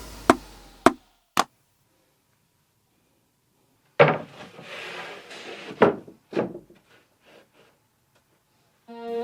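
Background music fades out. After a short silence come several sharp wooden knocks and clatters, the loudest about halfway through, tapering off. Music starts again near the end.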